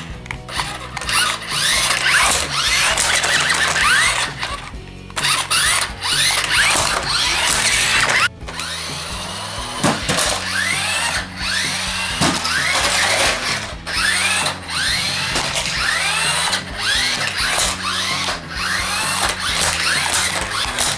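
Toy RC stunt car's electric motors whining, revving up and dropping back again and again, with sharp clattering knocks of the plastic car on the floor as it spins and flips. Music plays along underneath.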